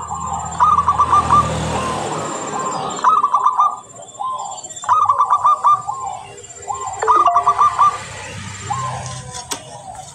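Zebra dove (perkutut) cooing: a stuttering run of quick notes followed by lower drawn-out coos, repeated four times about every two seconds.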